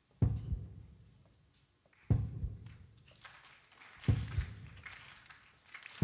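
Three loud, low drum hits about two seconds apart, each ringing out before the next.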